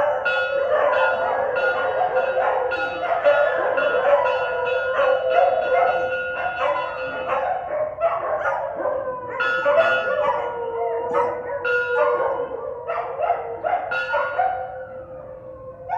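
Dogs barking and yipping in quick succession, several calls a second over a steady held tone, fading near the end.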